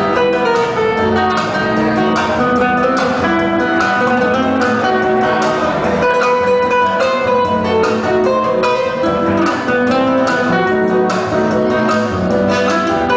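Several acoustic guitars playing live, a plucked melody of quick notes over strummed chords.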